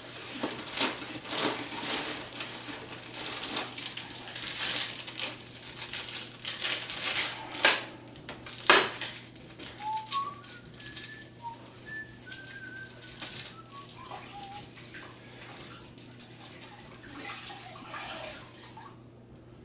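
Clicking, scraping and clattering of hand tools and hardware being handled at a cabinet door, with a sharp click about nine seconds in. After that, a few short soft whistled notes.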